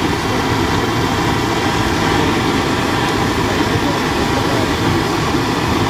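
Motorcycle riding at a steady pace: continuous engine running with wind and road noise.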